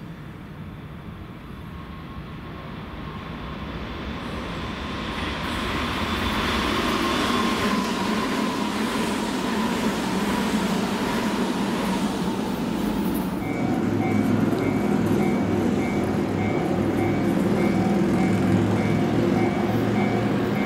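Tobu 100 series Spacia electric limited express train passing: its running noise swells over the first several seconds, with a motor whine that falls slightly in pitch as it goes by. About two-thirds through, the sound changes abruptly to the train approaching again, a steady running hum with a repeating high beeping tone.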